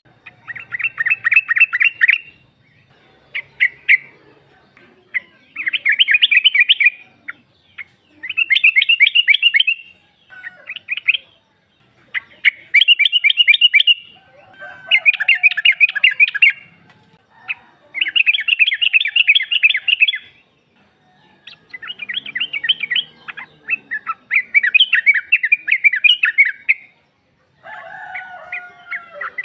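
Female yellow-vented bulbul calling: about a dozen quick bursts of bubbly chattering notes, each a second or two long, with short pauses between. The call is used to lure males into answering.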